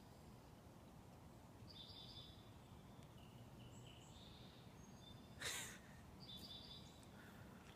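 Faint bird chirps: several short, high calls scattered through the quiet. About five and a half seconds in there is one brief rush of noise, the loudest sound.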